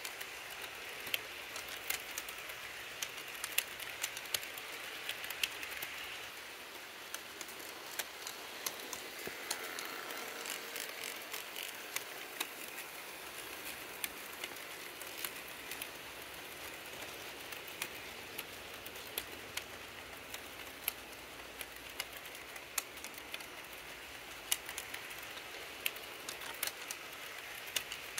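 HO scale model train cars rolling steadily past on the track, with a constant whir and many irregular sharp clicks from the wheels running over the rails.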